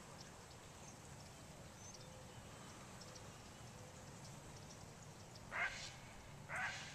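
Quiet outdoor background, then two short, harsh bird calls about a second apart near the end.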